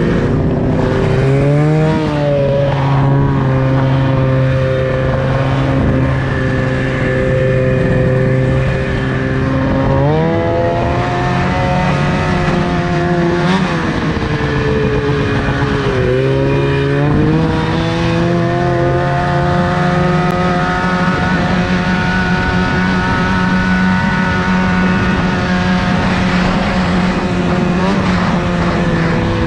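Snowmobile engine running under way on a trail, holding a steady pitch for long stretches, with throttle changes: the pitch rises about ten seconds in and dips and climbs again twice after that.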